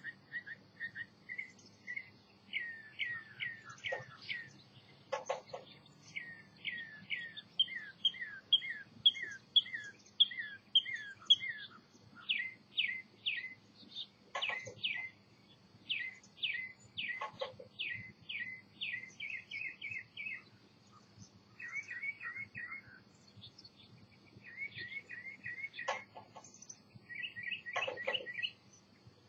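Songbirds singing: quick runs of short, downslurred chirps repeated one after another, with a few brief clicks among them.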